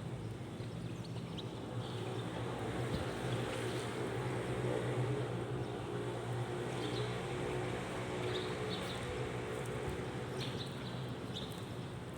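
Boat motor running steadily, a low even hum that swells a little partway through, with a few short high chirps or clicks over it.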